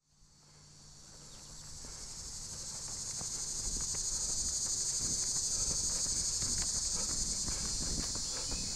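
A dense, steady chorus of insects trilling high in pitch in a summer meadow, fading in over the first few seconds.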